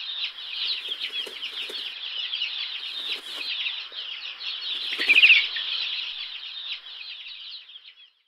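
Small birds chirping and twittering densely, many quick chirps overlapping, with a few short rustles. A louder burst of chirps about five seconds in, then the chirping fades out.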